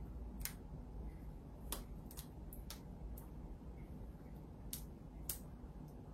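A handful of light, sharp clicks and ticks at uneven intervals, about seven in all: small parts and tools being handled inside the opened iMac while its display is being disconnected from the logic board.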